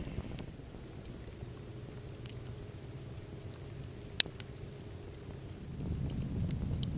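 Small wood campfire crackling, with a few sharp pops, the loudest about four seconds in; near the end a steadier low rush sets in.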